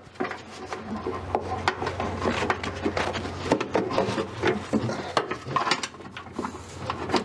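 Irregular clunks, knocks and scraping as parts under a car are worked loose by hand and eased down.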